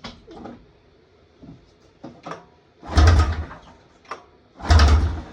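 Two hard pulls on the recoil starter of a Polaris snowmobile's two-stroke engine, each a short burst of cranking that does not catch. The engine is not firing because no fuel is coming out of the fuel pump.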